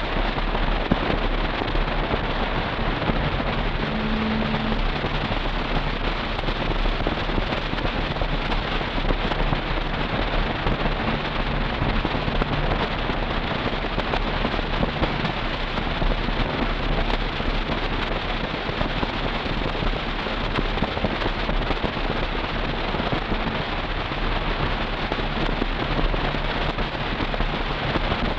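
Steady in-cabin driving noise from a 2000 Toyota 4Runner cruising: an even hiss of road and wind noise over the faint low drone of its engine through a Flowmaster Super 40 exhaust.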